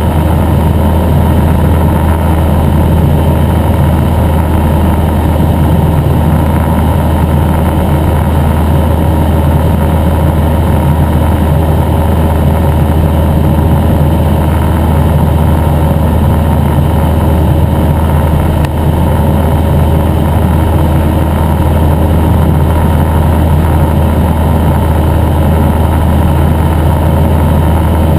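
Cessna 172N Skyhawk's four-cylinder Lycoming O-320 engine and propeller in steady cruise flight: a loud, even drone with a strong low hum.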